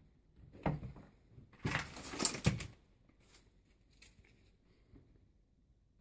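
Mechanical clicks from an airsoft gun: one sharp click, then a rattling burst of clicks lasting about a second, followed by a few faint ticks.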